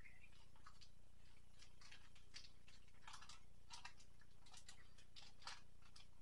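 Clear plastic wrapping on a pack of raw meat crinkling as it is handled, in irregular crackles.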